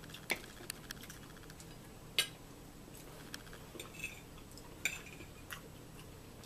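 A fork clinking and scraping against a plate, with a handful of separate sharp clinks; the loudest comes about two seconds in.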